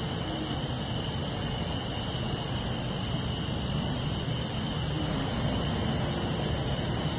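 Steady low rumble of heavy machinery running without a break, with no distinct hammer blows standing out.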